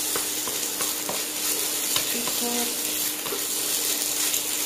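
Eggs sizzling in hot oil in a nonstick wok while a spatula stirs and scrapes them around, with a few light taps of the spatula against the pan.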